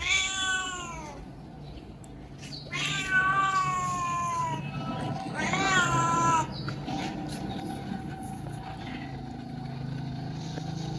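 Street cat meowing three times, long drawn-out meows that drop in pitch, the second the longest.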